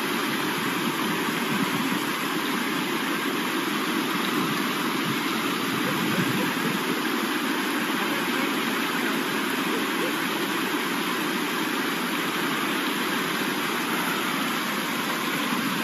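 Fast-flowing river rushing steadily over rocks and small rapids.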